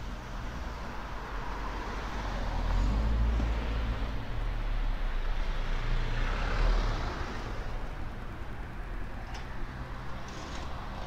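Road traffic passing on a street: engine rumble and tyre noise swell as vehicles go by, loudest as a small flatbed truck passes about six to seven seconds in, then ease back to a steady traffic background.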